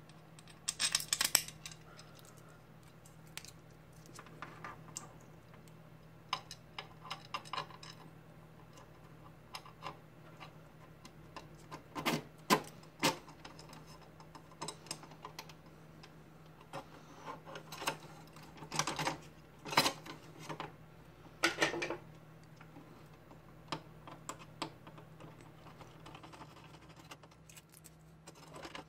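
Small metal hardware being handled and fitted: an aluminium angle bar, a screw and a spacer clicking, tapping and knocking against a monitor arm's metal mounting plate in irregular bursts, over a faint steady low hum.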